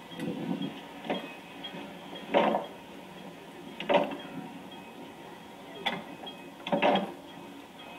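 Metal clanks from a manual railway switch stand as its hand lever is unlatched, swung and latched to throw the track switch: about six sharp knocks spread over several seconds, the loudest a little over two seconds in, about four seconds in and near the end.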